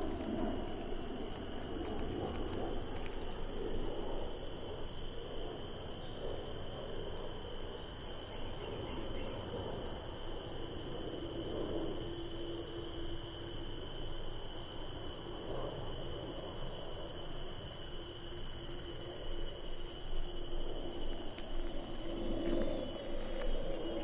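Tropical forest insect chorus: several steady high-pitched drones at different pitches, with a fast repeating chirp over them. A lower steady tone comes in briefly about halfway through and again for the last few seconds.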